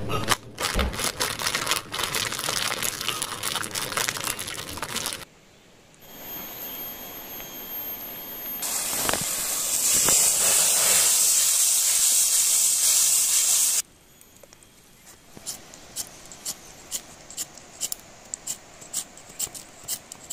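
A wood fire crackling. Then vegetables sizzling in a wok over the fire, a hiss that swells to loud and steady. After about 14 seconds, light sharp ticks about twice a second against a quiet background.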